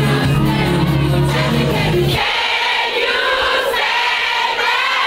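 Loud dance music with a large crowd singing along. About two seconds in, the bass drops out, leaving mostly the massed voices, and it comes back in at the very end.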